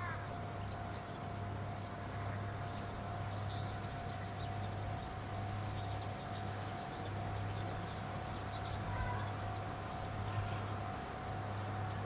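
Rice combine harvester running with a steady low hum and a thin whine, while many short high chirps sound throughout.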